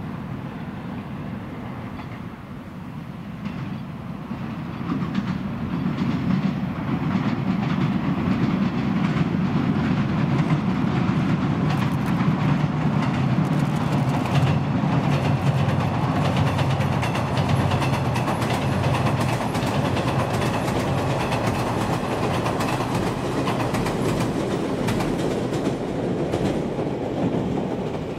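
JR East 115 series electric train running across a steel girder bridge: a heavy rumble from the bridge deck with the wheels clattering over rail joints. It grows louder about five seconds in and stays loud as the train crosses.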